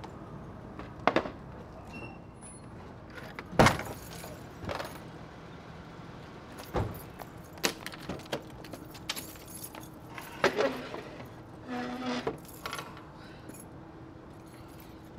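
Scattered knocks, clunks and rattles of household items being handled and loaded into a car, with the loudest thump about three and a half seconds in and a short squeak near the end.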